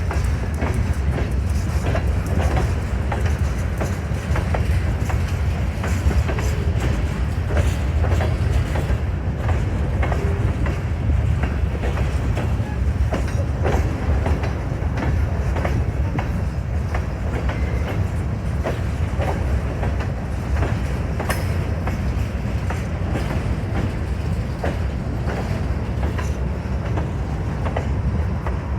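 Freight train of grain hopper cars rolling past, a steady rumble of wheels on rails with frequent clicks and clacks as the wheels cross rail joints.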